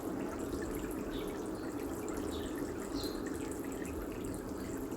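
Steady running water, like a tap left on, with a few faint short high squeaks over it.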